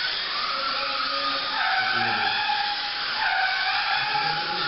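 Several Kyosho Mini-Z 1:28-scale radio-controlled cars racing, their small electric motors whining in overlapping tones that rise and fall again and again as the cars speed up and slow down around the track.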